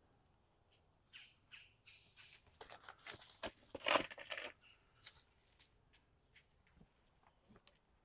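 A disc golfer's shoes scuff and crunch on a concrete tee pad and wood-chip ground during a run-up and throw, busiest a few seconds in and loudest about four seconds in. A steady high insect buzz carries on underneath.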